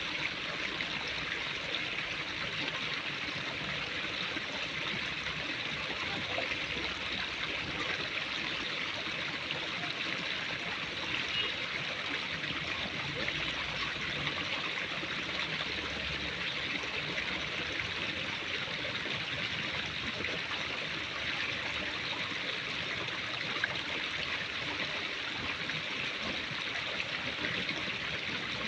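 Steady rushing of running water, like a stream, with no change in level.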